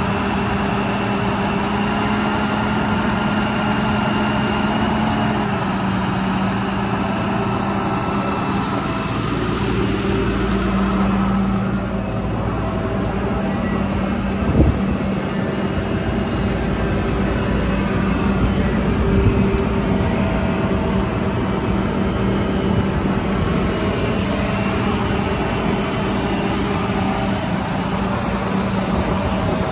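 Diesel engine and hydraulics of a truck-mounted digger derrick running steadily, an even hum with a held low tone. A single knock sounds about 15 seconds in.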